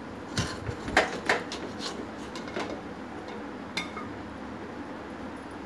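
A metal serving spoon clinks and scrapes against a metal cooking pot and a plate while cooked rice is served out. There is a quick run of clinks and knocks in the first three seconds, then one ringing clink near four seconds.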